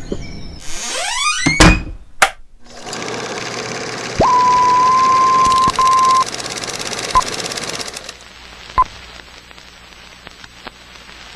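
Sound effects for an animated intro logo: rising whooshes ending in a heavy thud and a sharp click, then the steady whirring clatter of a cartoon film projector running. A high steady beep sounds over it for about two seconds, and a few short blips follow as it fades.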